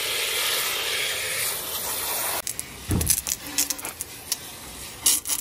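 Garden hose spray nozzle running water into a plastic bucket of soap, a steady hiss that stops suddenly about two and a half seconds in. After it come scattered knocks and clicks.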